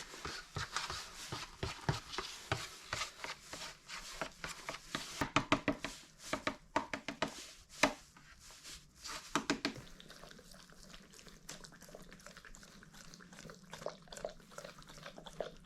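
Dog eating yogurt from a dish: a quick run of wet licks and small clicks, thinning out after about ten seconds.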